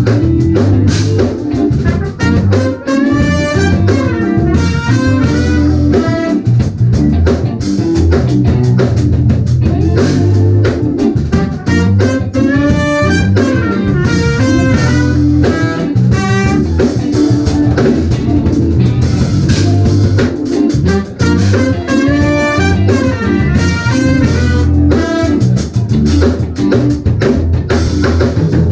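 Live jazz-fusion band playing an instrumental: electric guitar out front over electric bass and drum kit, with fast melodic runs.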